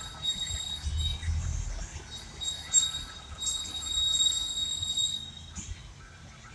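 High-pitched whistling squeal from a moving vehicle, coming and going in stretches and stopping about five seconds in, over a low running rumble. The driver cannot place its cause; it comes mainly when turning and not on the straight or under braking.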